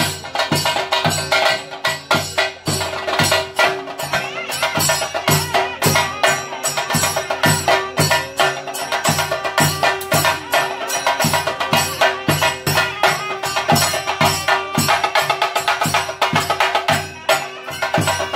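Percussion music: fast, even drum strokes with sharp clattering hits, over a steady held tone.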